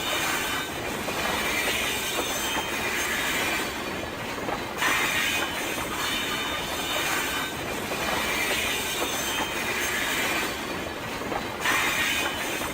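A train running on rails with a continuous rolling noise and high-pitched wheel squeal that comes and goes. The sound gets suddenly louder about five seconds in and again near the end.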